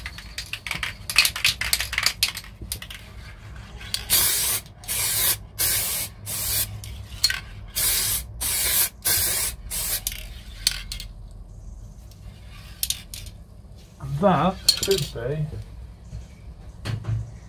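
Spray can of hydrographic activator sprayed over print film floating on water, in a long run of short hissing bursts that stop about two-thirds of the way through. The activator softens the film's ink into a liquid layer ready for the dip.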